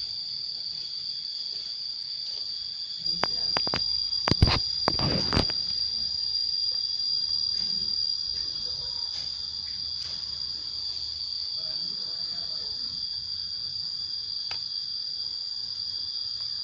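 Steady high-pitched insect chorus, with a cluster of hoe blades striking and scraping dry soil about three to five seconds in, the loudest strike near the middle of that cluster.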